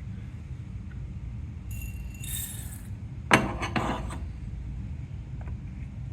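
Whole coffee beans and their dosing cup being handled: a short rattle of beans about two seconds in, then a sharp clink a little after three seconds and a few lighter clicks.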